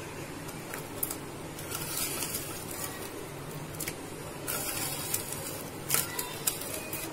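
Fried bread gulab jamun balls dropped one by one into cooled sugar syrup and nudged with a wooden spatula against the pan: a few faint, short taps and soft liquid sounds over a low steady background noise.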